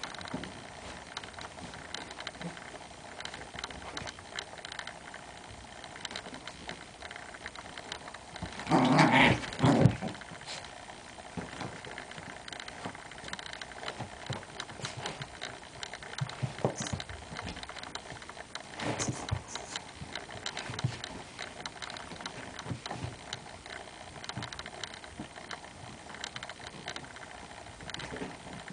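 Small dogs playing on a carpet: scratching paws and fabric rustling as a blanket is pulled and dug at, with a loud dog growl or bark lasting about a second roughly nine seconds in and a weaker one near nineteen seconds.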